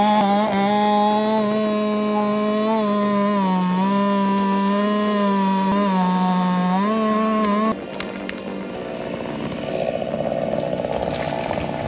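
Chainsaw running at high revs, its pitch dipping and recovering a few times as it cuts. About eight seconds in it stops abruptly, giving way to a rougher, noisier machine sound with a few sharp cracks.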